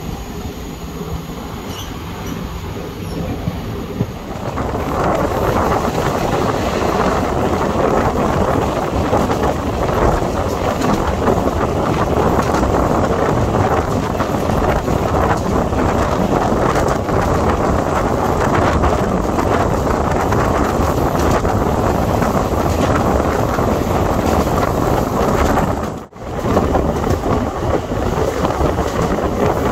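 Passenger train running at speed, heard from an open coach door: steady wheel and track noise with air rushing past. It grows louder about four seconds in and drops out briefly near the end.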